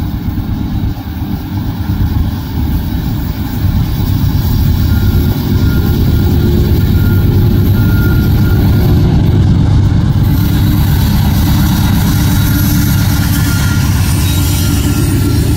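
A lash-up of Norfolk Southern and Union Pacific GE diesel freight locomotives approaching and passing close by at the head of an intermodal train. Their heavy, low engine rumble grows about four seconds in, then holds loud and steady as the units go by.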